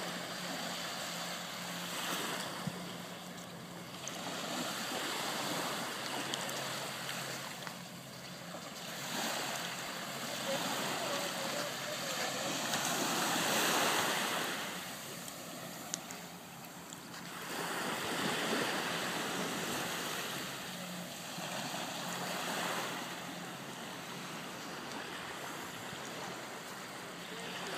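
Ocean surf washing onto a beach, the noise swelling and fading every few seconds as waves come in.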